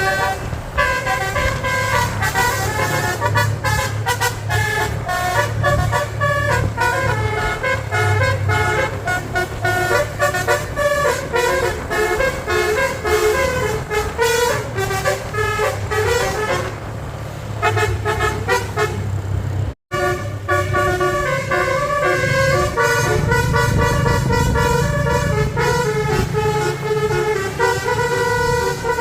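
Bus's basuri telolet musical air horn playing quick runs of toots, the notes changing pitch several times a second, over the steady low running of the bus engine. The sound cuts out for an instant about two-thirds of the way through.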